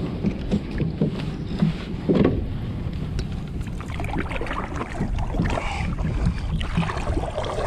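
Knocks, splashes and handling noises on a fishing kayak, with wind rumbling on the microphone.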